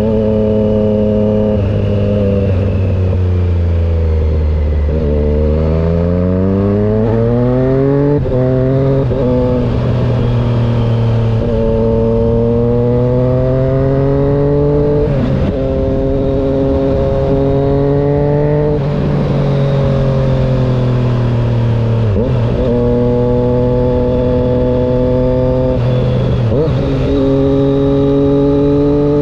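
2020 Triumph Street Triple 765 RS inline three-cylinder engine through a full SC Project exhaust without baffles, running under way. It holds low revs for about five seconds, then revs climb, broken by several short dips where it shifts up a gear before pulling on again.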